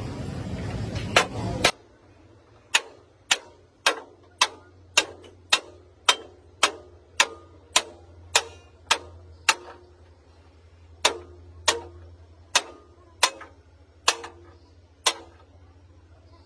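Evenly spaced hammer blows on steel, about two a second, each with a short metallic ring: a run of about thirteen, a pause of over a second, then five more. A faint low steady hum runs underneath.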